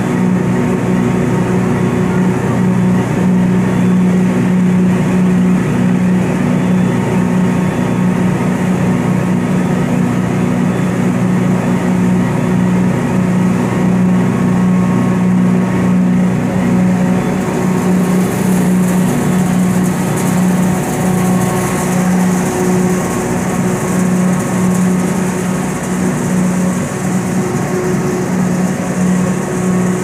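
Sawdust grinding machines and their cyclone blowers running steadily, a loud constant mechanical hum with a strong low drone, with hiss growing stronger about halfway through.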